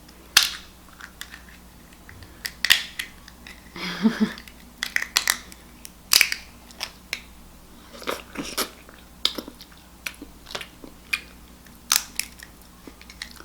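Close-miked eating: irregular sharp cracks and clicks of small lobster shells being broken and picked apart, mixed with chewing and crunching.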